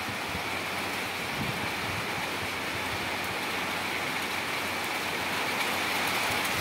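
Steady rain falling on a tiled courtyard floor, an even hiss that grows slightly louder toward the end.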